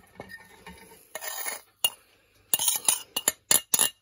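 Metal spoon scraping spices off a plate into a glass bowl: a short rustling slide of powder about a second in, then a quick run of sharp clinks as the spoon knocks against the plate and the bowl's rim.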